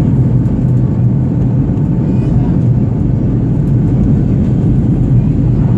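Airplane in flight: a steady, loud drone of engines and rushing air with a deep hum underneath.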